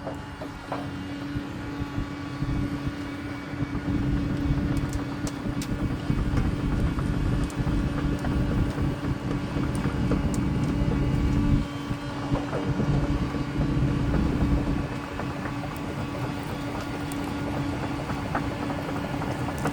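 Diesel engine of a 1999 Daewoo 290 excavator running with a steady drone and a heavy low rumble, with scattered metallic clicks and squeaks. It gets louder about four seconds in and eases back near the twelve-second mark.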